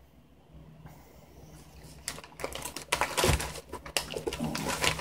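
Ration packs being handled: a quick, irregular run of crinkles, taps and clicks from foil and plastic packaging, starting about two seconds in.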